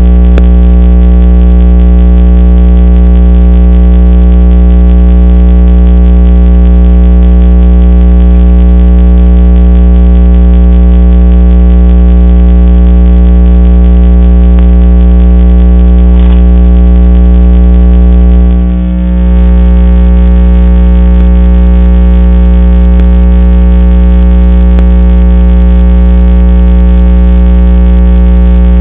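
Loud, steady electrical hum with many overtones, unchanging throughout, with a brief dip about two-thirds of the way through.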